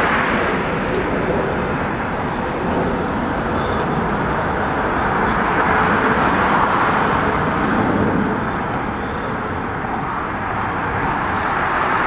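Steady noise of a Bombardier R142 subway train running away along elevated steel tracks, blended with the hum of expressway traffic.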